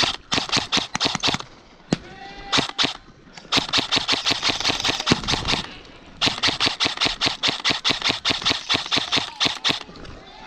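Airsoft guns firing on full auto: a rapid clatter of shots in several long bursts with short pauses between them.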